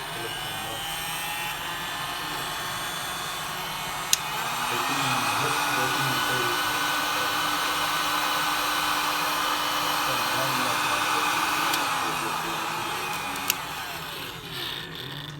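DeWalt heat gun running with a steady fan whirr. About four seconds in a switch clicks and it gets louder as the motor speeds up to a higher setting; near the end it slows, a switch clicks and the fan spins down.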